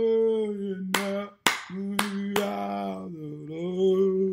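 Sung worship chorus with long held notes, the pitch stepping down and back up near the three-second mark. Handclaps keep time, four claps about a second to two and a half seconds in.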